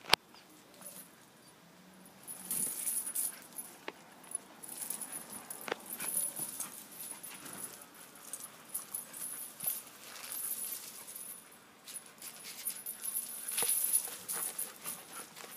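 Two dogs play-wrestling on loose dirt: paws scuffling and a metal tether chain jingling in irregular bursts.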